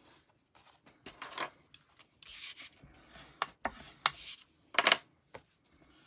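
Cardstock pieces being handled and slid across a craft mat: irregular rustles and scuffs of paper, with one sharper scuff about five seconds in.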